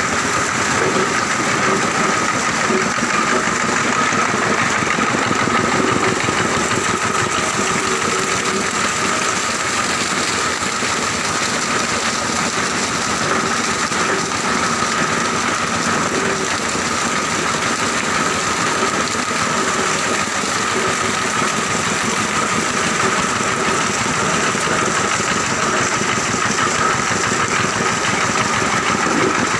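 Plastic grinding and washing machinery running steadily: a continuous mechanical drone with a constant high whine.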